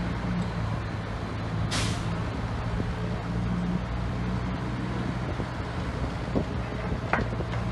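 Heavy diesel engine running steadily, with a short, loud air-brake hiss about two seconds in, typical of a heavy dump truck.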